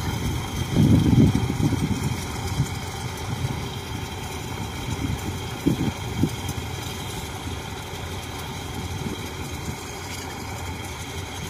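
Diesel engine of a tracked rice-bag carrier idling steadily.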